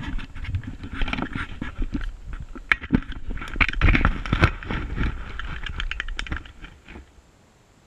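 Close handling noise of a small camera being pushed and settled into loose dirt: scraping, crunching grit and knocks right on the microphone. It stops about seven seconds in, once the hand lets go.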